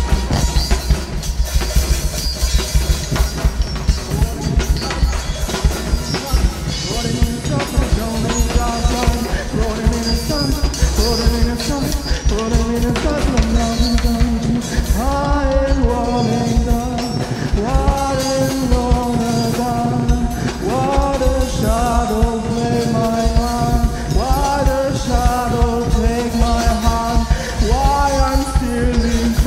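Live experimental rock from a drum kit, modular-synth electronics and a male voice: the drums keep up a busy beat over electronic noise, and from about halfway a man sings short repeated phrases into the microphone.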